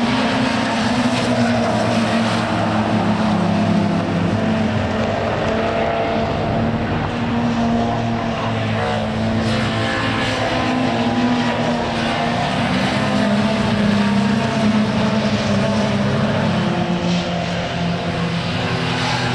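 Engines of historic saloon race cars running hard as a close pack drives past, a dense mix of engine notes rising and falling as the cars come and go.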